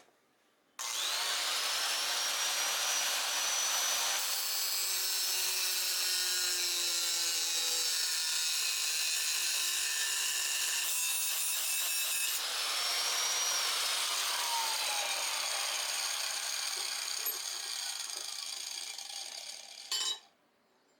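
An electric power tool cutting or grinding scrap iron. Its motor spins up with a rising whine about a second in, then runs steadily with its pitch dipping and recovering as it bites. It stops shortly before the end with a sharp clack.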